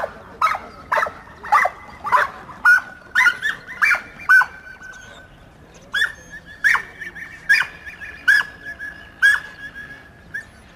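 Dogs barking and yelping in quick succession, about two calls a second, with a high steady tone running under them for several seconds in the middle.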